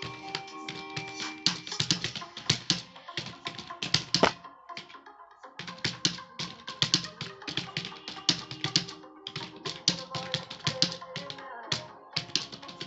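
Fast, irregular clatter of keystrokes on a computer keyboard during a timed typing test, with a short pause about five seconds in. Song music plays faintly underneath.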